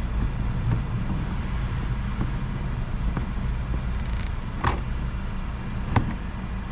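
Steady low hum of a shop air compressor running, with a few sharp clicks of a clip puller working a spinning plastic push clip in the fender liner. The two loudest clicks come about four and a half and six seconds in.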